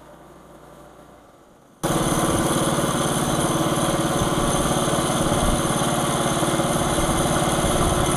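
Small gasoline engine of a Norwood LumberMate portable bandsaw mill running steadily. It comes in abruptly about two seconds in, after a faint hum.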